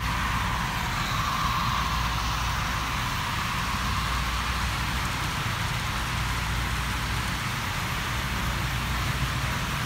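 HO-scale model trains running on the layout's track: a steady whirring rumble with a hiss.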